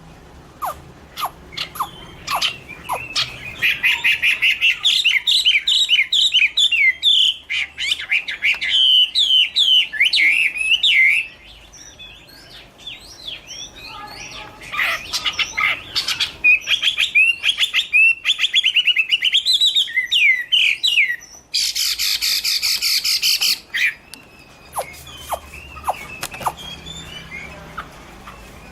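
Chinese hwamei (Garrulax canorus) singing: two long bouts of rapid, repeated whistled notes that swoop up and down in pitch. Later a loud, harsh, noisy burst lasts about a second and a half, and short clicks sound near the start and near the end.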